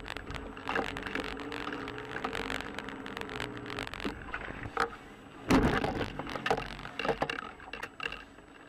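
A car driving on a wet, slushy road, heard from inside the cabin: engine hum and tyre noise with scattered clicks and knocks, and a loud thump about five and a half seconds in.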